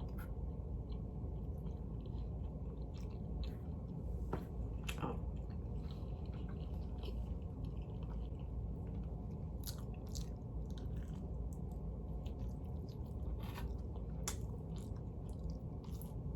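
Close-up chewing and biting of pizza, with scattered short crunches and mouth clicks over a steady low hum.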